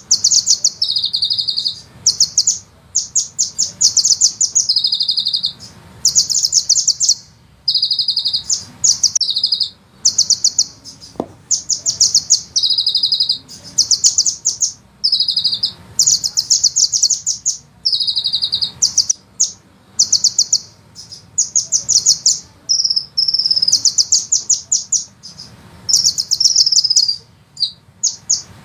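Sunbird singing: rapid, high-pitched rolling trills about a second long, repeated again and again with short gaps, mixed with a few shorter sliding notes.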